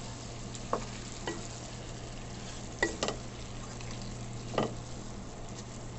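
Chicken, pechay and bell pepper sizzling in a hot pan while being stirred with a wooden utensil, with a few short knocks of the utensil against the pan, the loudest about three and four and a half seconds in.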